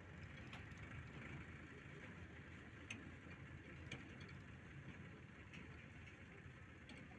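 Faint, distant diesel engines of a JCB backhoe loader and farm tractors running, with a few light ticks.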